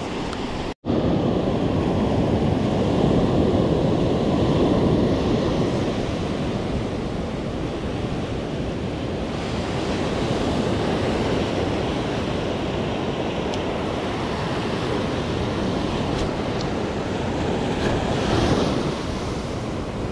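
Ocean surf breaking and washing up the sand, with wind on the microphone; the sound swells as waves break a few seconds in and again near the end. It cuts out for a split second about a second in.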